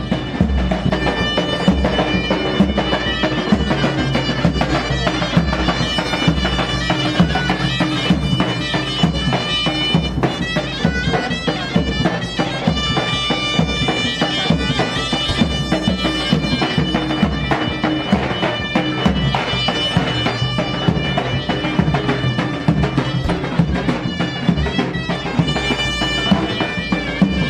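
Folk dance music: a shrill reed wind instrument playing a held, winding melody over a steady drum beat.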